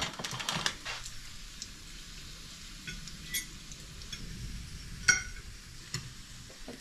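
Bacon sizzling steadily in a frying pan without splattering, with a few sharp clinks of a metal fork against the pan as the cooked strips are lifted out; the loudest clink comes about five seconds in.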